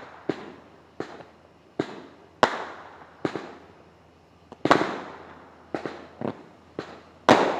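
Fireworks going off: a string of sharp bangs at uneven intervals, about a dozen, each followed by an echo.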